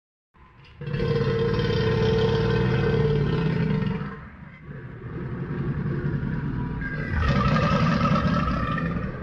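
Sound-designed Pyroraptor dinosaur call, mixed from animal recordings: a long, deep growl with a held tone for about three seconds, a short dip, then a second long growl that takes on a higher tone about seven seconds in and cuts off suddenly.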